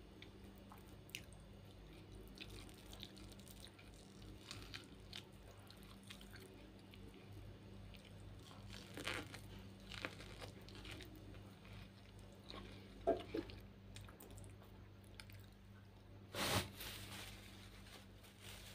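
Biting and chewing boiled corn on the cob: scattered soft crunches and wet mouth clicks, bunched about nine and thirteen seconds in, with a louder short burst of noise about sixteen seconds in.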